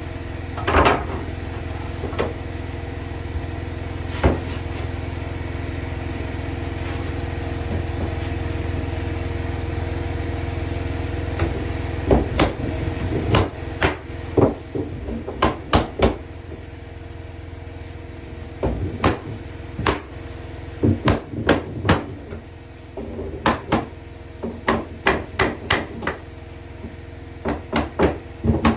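Hammer blows on wood, coming in quick groups of a few strikes with short pauses between, most of them in the second half. A steady low hum runs under the first half and drops away about twelve seconds in.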